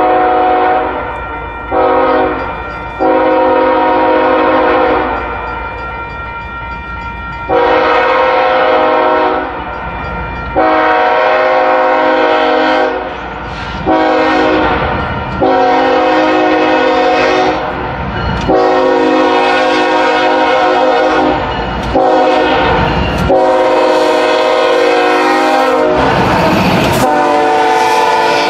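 Diesel freight locomotive's multi-chime air horn blowing a long series of blasts, mostly long with a few short ones, sounding for road crossings as the train approaches. Near the end the locomotive and wheels pass close, adding a rumbling run-by to the horn.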